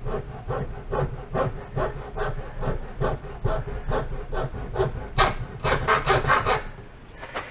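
Hand-sawing strokes through a piece of rubber hose to cut a slot in it, going back and forth at an even pace of about two to three strokes a second. The strokes turn quicker for a second or so past the middle, then die away near the end.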